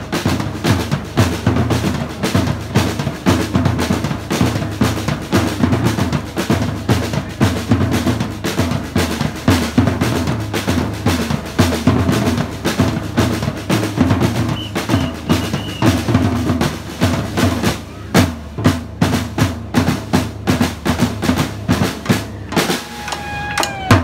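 A street drum group playing a fast, dense rhythm on large stick-struck bass drums and snare drums. About three quarters of the way through, the pattern opens out into sharper, separated hits.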